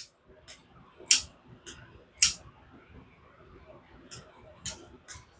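Button lock folding knife (Ozark Trail Elevation) being flicked open and shut, its blade snapping against the button lock in a string of sharp clicks. About five come at half-second intervals, then there is a pause, then a few more near the end. The action is really snappy.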